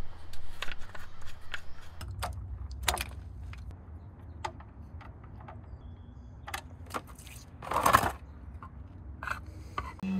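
Scattered clicks, taps and scrapes of hands and metal parts being handled on a truck engine and oil pan, including the oil filler cap and the oily drain plug. One louder, longer burst of noise comes about eight seconds in.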